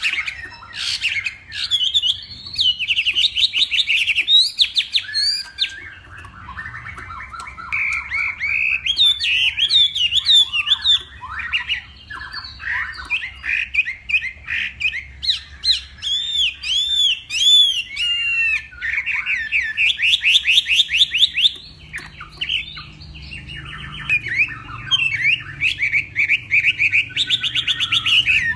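Chinese hwamei (hoạ mi) singing a long, varied song: fast runs of repeated sweeping whistled notes and trills, phrase after phrase with short pauses between.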